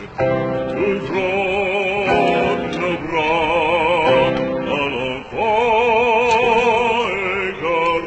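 Background music: an operatic voice singing long held notes with wide vibrato, over classical-style accompaniment.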